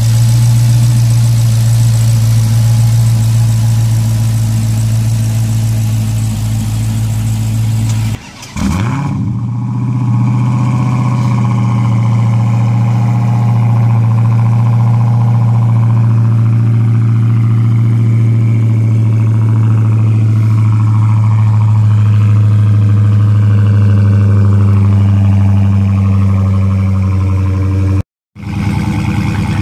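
Dodge Challenger SRT Hellcat's supercharged 6.2-litre HEMI V8 idling steadily, heard first at the engine bay and then at the exhaust tips. The sound breaks off briefly about eight seconds in and again near the end.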